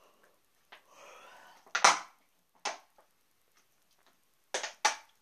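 Thin plastic water bottle crackling as it buckles while being drunk from: a few sharp crackles, the last two close together near the end.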